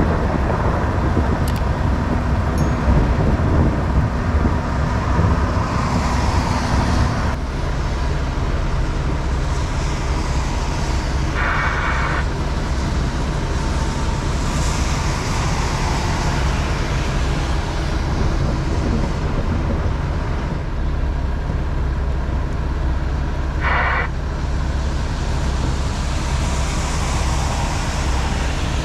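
A semi truck's diesel engine running with a steady low hum. Two short bursts of higher noise come through, about twelve and twenty-four seconds in.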